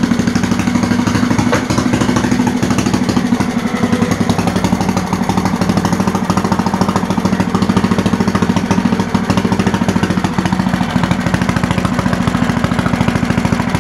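Briggs & Stratton 6 hp single-cylinder engine on an old Bolens garden tractor running steadily, with a rapid, even exhaust beat.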